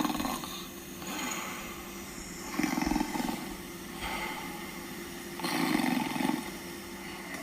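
A person snoring on request, with loud rasping snores about every three seconds and quieter breathing between, without a snore guard appliance in the mouth.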